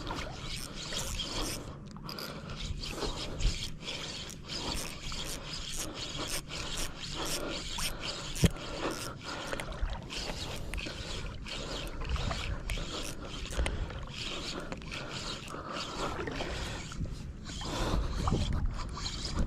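Fishing reel being cranked steadily, a continuous mechanical scraping rattle of its gears, as a hooked fish is reeled in.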